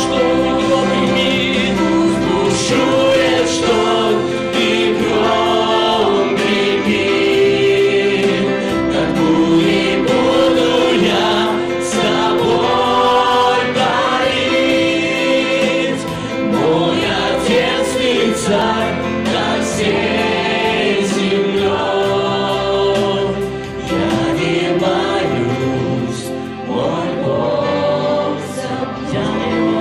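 A small worship group of men and women singing a gospel song together through microphones, with electric keyboard accompaniment.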